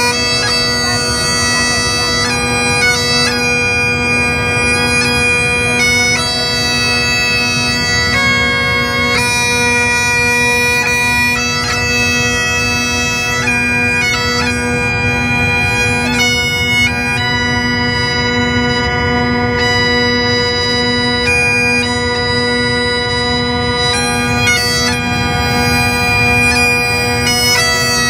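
Great Highland bagpipes, several pipers playing a tune together: the chanters change note quickly over a steady, unbroken drone.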